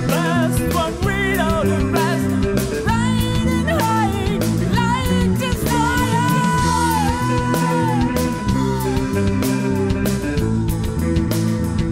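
Background music: a rock song with a singing voice and guitar over a steady beat.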